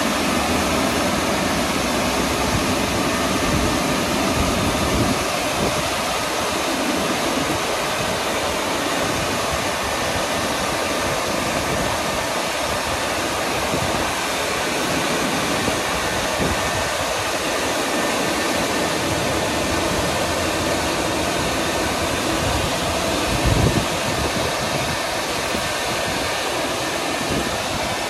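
WashTec EasyWash rollover car wash gantry running its drying fans: a steady, loud rush of blown air as the gantry moves along its rails over the car. A brief low thump comes near the end.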